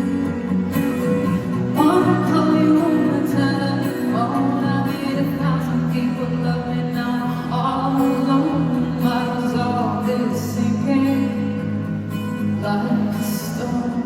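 Live band music from the audience: a strummed acoustic guitar with sustained backing, and a singing voice carrying the melody from about two seconds in.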